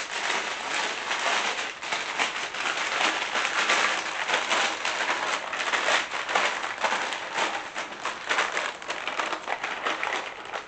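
Thin plastic disposable piping bag being handled and opened, a continuous crinkling and crackling that stops near the end.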